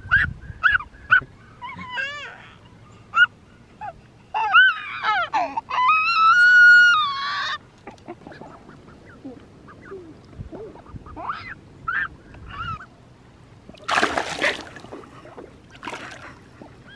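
Mallard hens calling close by: a run of short calls and one longer drawn-out call, with a brief splash of water near the end.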